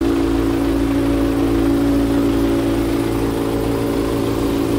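Large tractor's engine running steadily and loudly at an even pitch.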